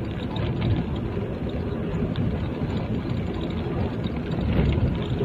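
Car driving along a town road: steady engine and tyre noise heard from inside the cabin.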